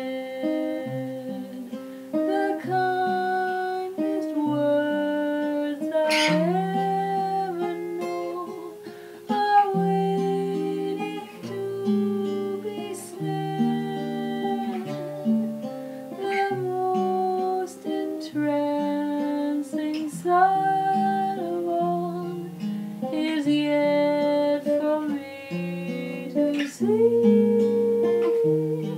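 Guitar playing an instrumental passage of the song: a melody of plucked notes over chords, with a few notes sliding in pitch.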